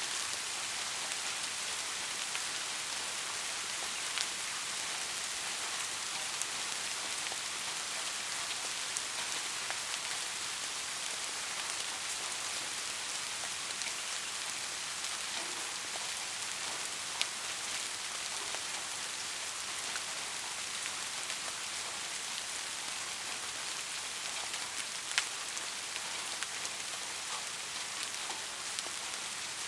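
Steady heavy rain falling, a constant hiss, with a few louder single drops landing now and then.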